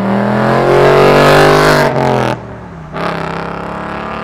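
A Ford Mustang's engine and exhaust accelerating hard past, its note loudest about a second in and falling in pitch as it goes by. About two seconds in the sound cuts off abruptly for a moment during a gear change, then picks back up at a lower pitch and fades as the car pulls away.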